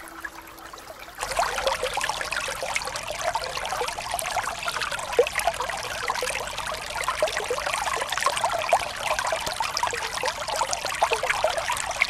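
Small spring brook trickling and babbling over stones and leaf litter. About a second in it jumps to a louder, closer babbling with many quick gurgles.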